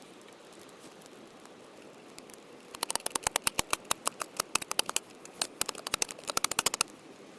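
A seasoning grinder twisted over a steak, giving a quick run of sharp ratcheting clicks for about four seconds, starting about three seconds in.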